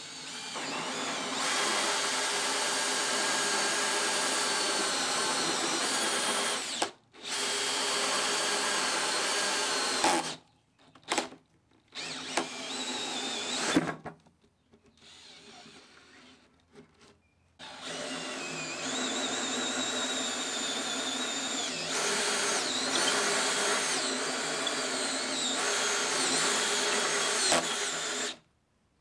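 DeWalt cordless drill driving a hole saw through a plywood box top, running in long steady runs with a few short stops and brief bursts in the middle.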